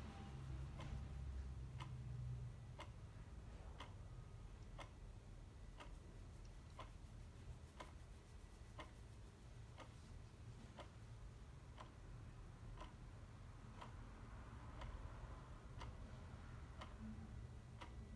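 Clock ticking faintly and evenly, about one tick a second, over a low steady hum.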